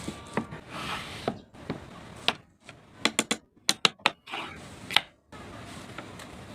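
Woodworking tools and pieces being handled and set down: a series of sharp taps and knocks, with a quick run of clicks a little past the middle and soft rustling between them.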